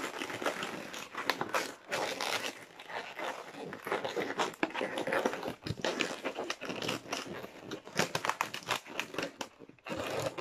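Inflated latex modelling balloons rubbing and twisting in the hands: a dense run of short, irregular crackles that thins out briefly near the end.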